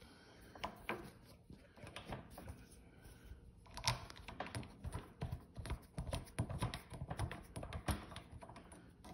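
Irregular clicks, taps and small knocks of hands tightening the lawnmower's handle back into place, busier and louder from about four seconds in.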